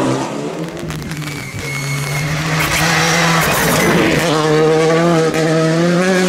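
Škoda Fabia rally car engine held at high revs at full throttle as the car passes close and slides through a corner, its steady note climbing slightly in pitch.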